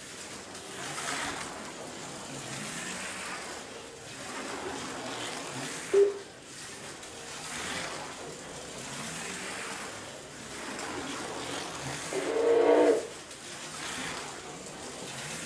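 Ferrari 312P slot car running laps on a routed plastic track, its small electric motor and gears whining in swells that come and go every couple of seconds as it passes the microphone, running smooth and fairly quiet. There is a brief sharp sound about six seconds in, and a louder sound about a second long a little before the end.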